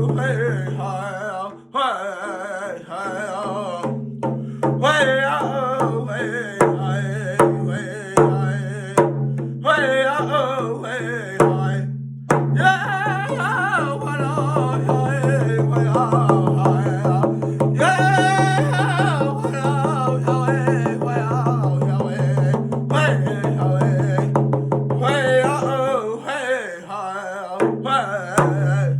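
A young singer performing a self-composed powwow sneak-up song in a high, wavering voice, accompanied by drum beats.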